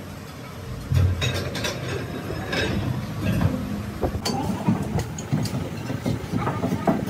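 Irregular metal clanks and knocks from a steel axle shaft being set into a lathe chuck and the chuck jaws being tightened around it, starting about a second in.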